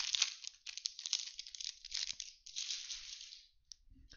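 Plastic wrapper of a Bowman baseball card pack crinkling and tearing as it is ripped open by hand. The crackling stops about three and a half seconds in, leaving a faint click or two.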